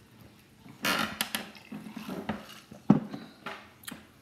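A person drinking gulps from a glass, with light clinks and knocks of the glass and a sharper knock about three seconds in.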